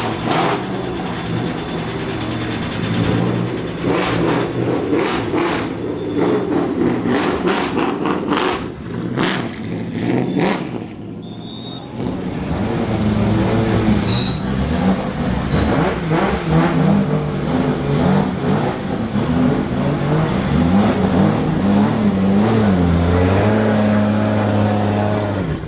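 Car engine running and revving, with a string of sharp cracks in the first half and the pitch rising and falling in the second.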